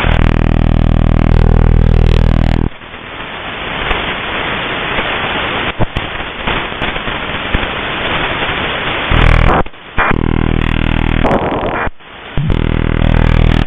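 Shortwave radio receiver hissing with static between stations, broken by loud buzzing signals of a steady low pitch for the first few seconds and again in stretches near the end.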